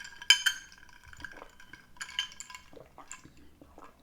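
A drinking glass and dishware clinking: a few sharp clinks, the loudest about a third of a second in and more near the middle and end, each leaving a brief ringing tone.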